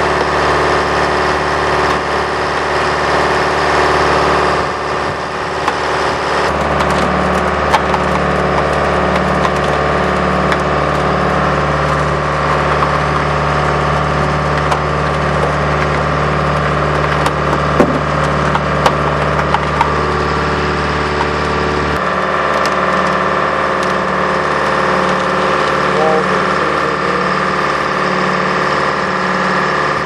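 Detroit diesel engine of an Al-Jon 400 logger/baler running steadily, its low note changing about a quarter of the way through and again about two-thirds through, with a few light ticks in between.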